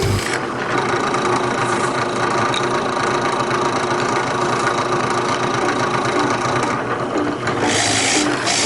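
Drill press running steadily, its motor giving an even hum with a constant whine. A brighter hiss comes in near the end.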